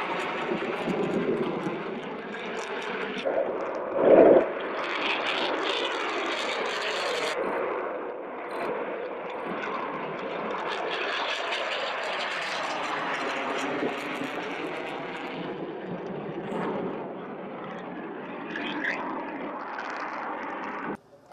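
Jet noise from an F-22 Raptor's twin turbofan engines at high power as the fighter flies low and climbs away, a steady rushing roar. A brief loud thump about four seconds in.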